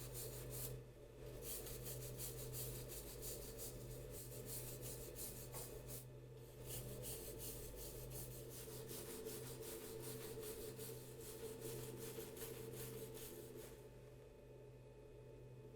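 Quick, repeated rubbing strokes on the filter of a Dyson Supersonic hair dryer, as debris is cleaned off it, stopping near the end. A faint steady hum lies underneath.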